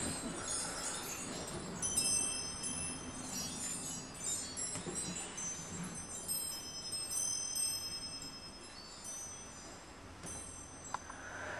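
Metal chimes ringing in clusters of overlapping high, bell-like tones from about two seconds in, dying away near the end.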